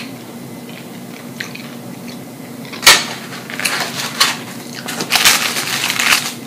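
Paper food wrapping being handled: a sharp crackle about three seconds in, then dense irregular crinkling and rustling that stops just before the end.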